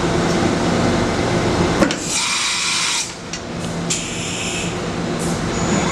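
Matsuura MC-760VX CNC vertical machining center running a machining program with a steady mechanical hum. About two seconds in the hum drops away and a hiss takes over for about a second, with a shorter hiss near four seconds. Near the end the hum comes back with a rising whine.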